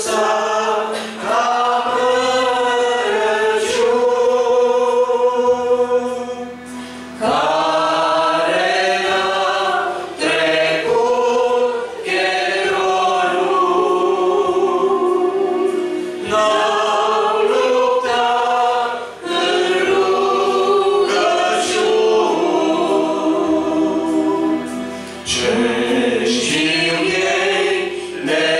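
Group of voices singing a Romanian hymn, with a man's voice leading at the microphone. The phrases last a few seconds each, with held notes and short breaks between them.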